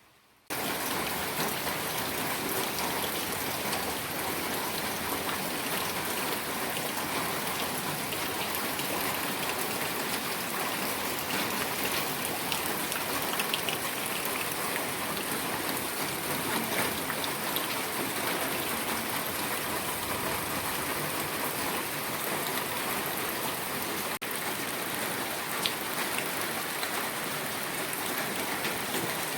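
Steady rain falling, a dense even hiss with scattered drop ticks, starting suddenly about half a second in.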